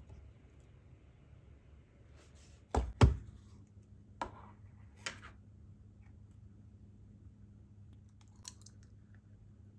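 Kitchen things being handled and set down: two sharp knocks close together about three seconds in, then two lighter knocks and a faint clatter near the end. A low steady hum starts right after the first knocks.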